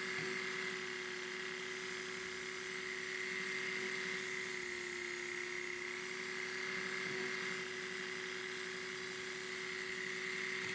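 Work Sharp Ken Onion Elite belt sharpener running steadily with a coarse abrasive belt, its small electric motor giving a constant hum and whine. A brief extra hiss comes three times, about three and a half seconds apart, as the knife blade is drawn across the belt.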